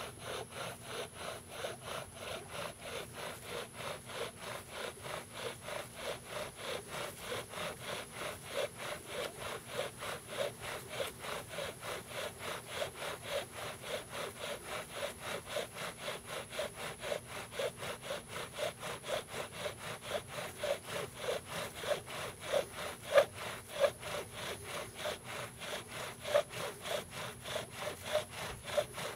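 Bow drill in use: a wooden spindle spun back and forth by a bow, grinding and squeaking against a wooden hearth board in a steady rhythm of about three strokes a second, a few strokes louder near the end. This is friction fire-lighting, the spindle working up hot wood dust toward an ember.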